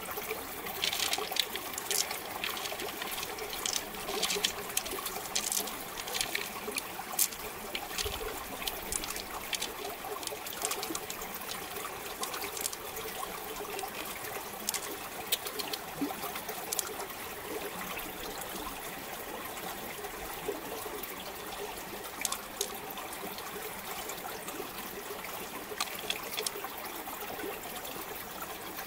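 Water trickling and dripping as fingers work in the liquid inside an opened giant freshwater mussel shell. Scattered small clicks of pearls knocking together run over it, most frequent in the first several seconds.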